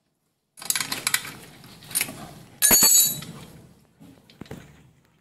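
Metal clicks and clinks of a tool working the spark plug loose from a Honda grass cutter's engine, with one louder ringing clink about three seconds in and a few fainter clicks after it.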